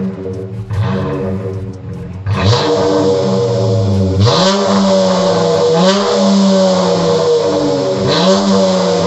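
Dodge Challenger SXT's 3.6-litre V6 exhaust through Cherry Bomb Extreme mufflers, idling and revved in short blips. Each blip rises quickly in pitch and settles back to idle, four or five times, louder from about two seconds in.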